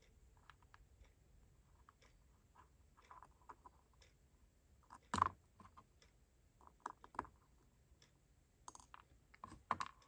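Scattered light clicks and taps of a TopB mechanical fidget being handled and opened up to get at its ball-spring detents, with a few sharper clicks about five, seven and nine seconds in.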